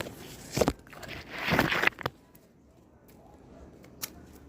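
Crackling, rustling noise in two bursts, a short one and then a longer, louder one, followed by a few faint clicks.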